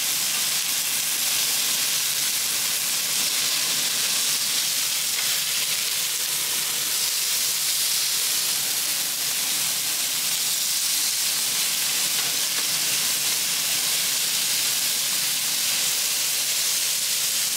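Pork belly sizzling steadily as it grills, a continuous high hiss of fat frying.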